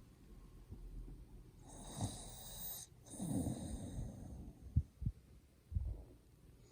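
A sleeping Chihuahua–pug mix snoring: two long snoring breaths about two and three seconds in, the first with a high whistle in it, followed by three short sharp sounds near the end.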